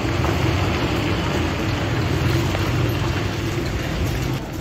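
Steady street noise with a low vehicle-engine hum from nearby traffic, which drops away shortly before the end.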